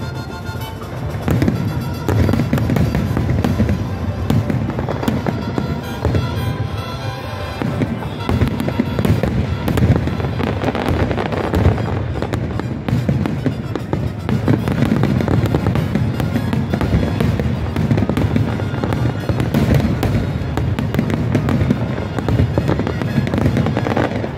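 Aerial fireworks going off in a dense, continuous barrage of booms and crackles, with music playing underneath.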